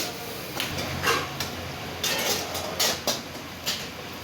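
Kitchen clatter: a series of sharp metal clanks and scrapes over a steady low rumble that sets in about a second in.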